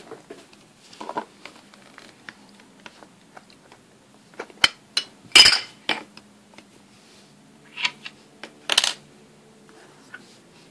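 Small plastic toy pieces clicking and clinking as they are handled and dropped into a clear plastic box. There are a few sharp clinks, the loudest about halfway through and two more near the end.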